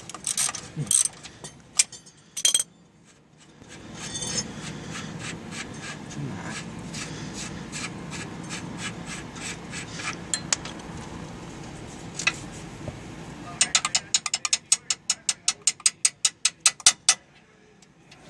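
Hand tools working on an axle: scattered metallic clicks and knocks, then near the end a ratchet wrench clicking in a quick even run of about three or four clicks a second for several seconds.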